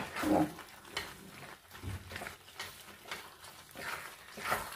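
Wooden spatula stirring cooked penne into a pan of thick white sauce: irregular mixing and scraping sounds against the pan, loudest just after the start and again near the end.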